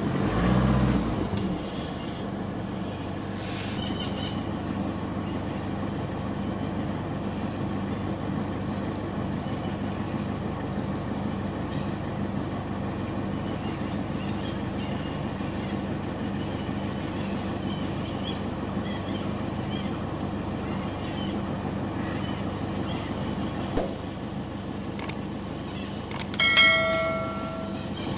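A steady low hum with a high-pitched buzzing pulse that repeats about once a second throughout. It opens with a low thump, and near the end there is a short, louder sound with several pitches.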